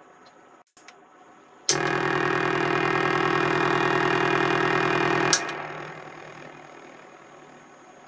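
S-Cat digital dub siren played through delay and reverb: after a couple of faint clicks, a loud tone with a fast wobble starts suddenly about two seconds in and holds for about three and a half seconds. It then cuts off with a click, leaving an echoing tail that slowly fades away.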